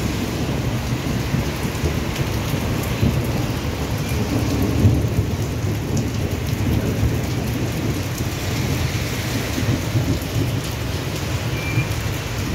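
Steady rain falling on a wet street and paving, with a continuous low rumble underneath.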